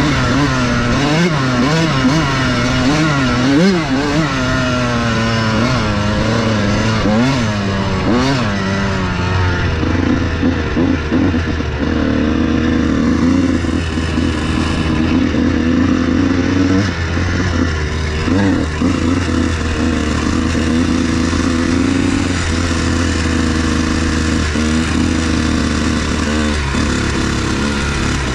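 Dirt bike engine heard from the rider's seat, revving up and down through the gears for the first several seconds, then held at a steady pitch while cruising, with knocks from the rough ground.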